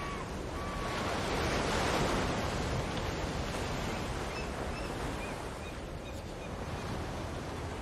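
Sea surf breaking and washing on a rocky shore, with wind. The surf swells about two seconds in. A few faint, short, high chirps come in the second half.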